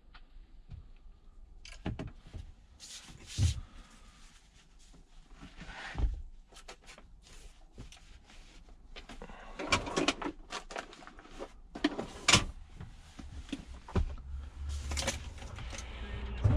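Scattered clicks, knocks and rubbing from things being handled in a truck cab, with a cloth wiped over the dashboard, and several sharper knocks among them.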